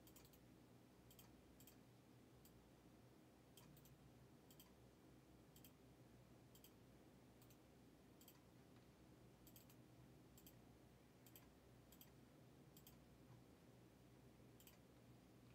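Near silence with faint, scattered clicks of a computer mouse, roughly one a second and irregularly spaced, over a low steady hum.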